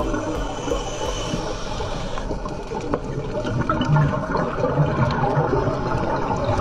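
Churning, bubbling water noise picked up by a camera underwater.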